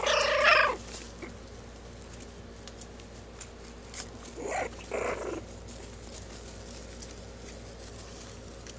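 Young puppy growling in short, high-pitched bursts: a loud one at the start, then two shorter ones about four and a half and five seconds in.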